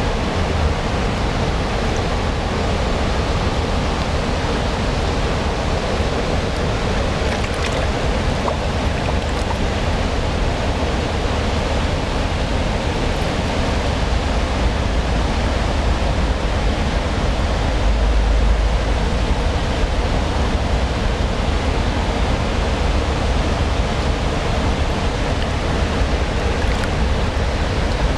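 Mountain river water rushing over rocks and shallows, a steady, even sound of flowing water.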